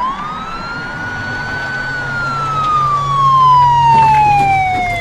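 Police car siren wailing: one slow rise to a high pitch about two seconds in, then a long slow fall. A low hum runs under it, and a sharp knock comes right at the end.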